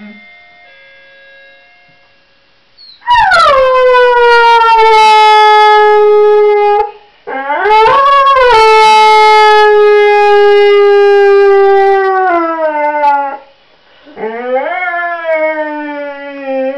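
English Bull Terrier howling along to an electronic door chime: the chime's last faint notes, then three long howls. The first starts high and slides down to a held note, the second rises and holds for about six seconds before dropping, and the third is shorter and rises.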